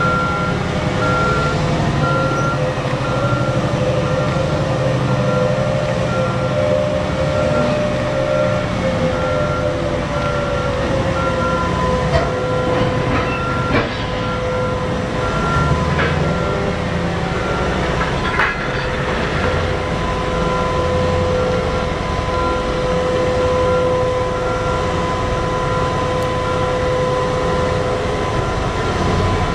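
BelAZ 75710 mining haul truck driving loaded, its twin MTU 16-cylinder diesel-electric drive giving a steady drone with a whine. A repeating beep alarm sounds over it and stops a little over halfway through.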